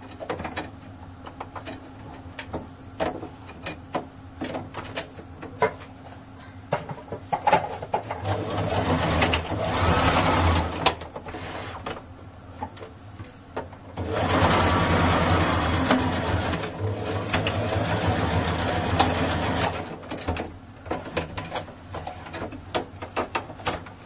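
Brother domestic electric sewing machine stitching a seam in two runs, a short one about eight seconds in and a longer one from about fourteen to twenty seconds, with scattered light clicks between and after the runs.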